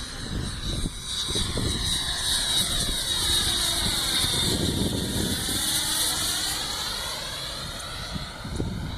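90mm electric ducted fan of a Zagi flying-wing RC model, running at high power with a jet-like whine as the plane flies past. The sound builds to its loudest in the middle, then fades.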